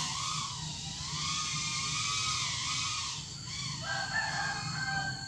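Micro FPV drone's motors whining, the pitch rising and falling as the throttle changes. About four seconds in, a rooster crows once.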